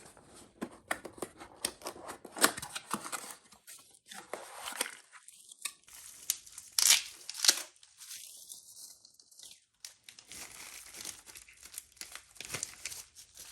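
Irregular clicks, scrapes and rustling of small parts and packaging being handled while a motorcycle shifter peg is fitted, with two short lulls partway through.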